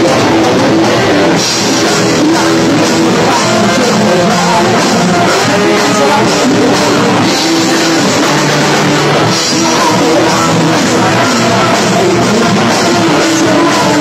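A rock band playing live, with drum kit, electric guitars, bass and keyboard, and a sung vocal over the top. The music is loud and runs on without a break.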